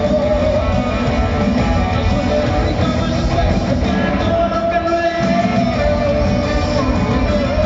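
Live pop band music with a lead vocal, played loud over an arena's sound system. The bass drops out for a moment about five seconds in.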